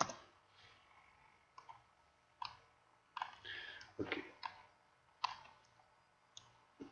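Computer mouse and keyboard clicks: single sharp clicks about once a second, some louder than others, over quiet room noise.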